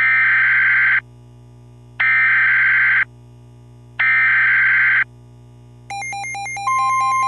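Emergency Alert System SAME header: three one-second bursts of screechy digital data tones, two seconds apart, over a steady low hum. About six seconds in, a synthesized pulsing alert tone starts, and a steady tone joins it about a second later.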